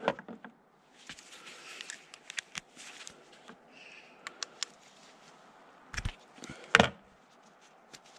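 Hands in work gloves handling a small-engine carburetor and a screwdriver: scattered light metal clicks and rustling, then two louder knocks near the end.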